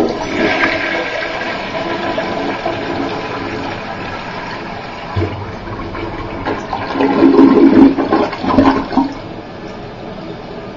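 A 1988 Crane Hymont toilet flushing: water rushes in suddenly and swirls down the bowl, loudest in a run of strong surges about seven to nine seconds in as the bowl empties. Then it settles to a quieter steady hiss as the tank refills through its Fluidmaster fill valve.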